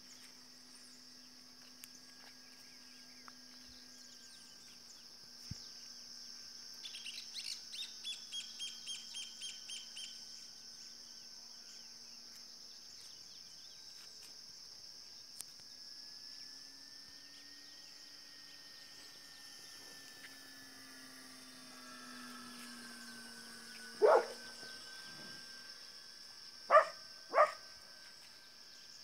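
Rural outdoor sounds: a steady high insect drone, and a bird calling in a quick run of about ten notes about a quarter of the way in. Three short, loud animal calls come near the end and are the loudest sounds. Beneath them, a faint drone from a distant radio-controlled model airplane drifts slowly up and down in pitch.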